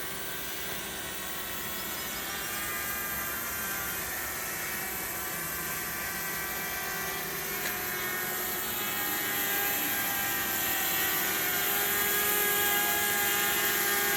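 Multirotor camera drone's electric motors and propellers running: a steady whine of several tones together, growing gradually louder.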